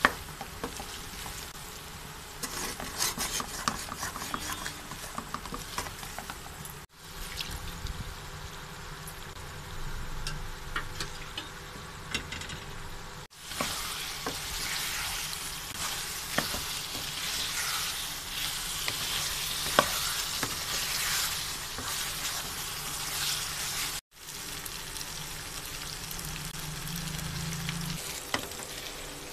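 Beef karahi sizzling and crackling in hot oil in a frying pan while a wooden spatula stirs and scrapes through it, with many small ticks and clicks. The sound cuts out for an instant three times.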